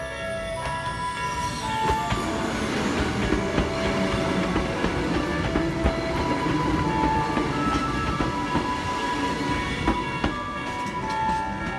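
Hakone Tozan Railway A2000 series electric train passing close by: a steady rumble of wheels on the rails with a few sharp clicks. Background music with held notes plays over it.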